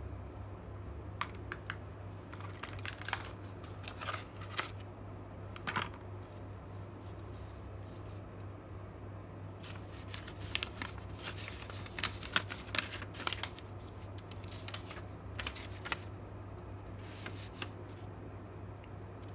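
Scattered light clicks and rustles of hands handling small objects, in two busy spells, over a steady low hum.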